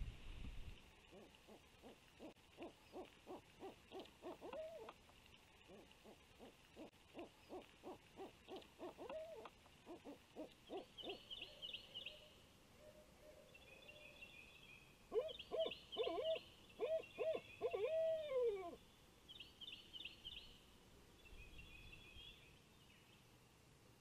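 Barred owl hooting: two rhythmic runs of evenly spaced hoots, about two to three a second, each ending in a drooping note. About fifteen seconds in comes a louder group of hoots ending in a long, falling 'aww'.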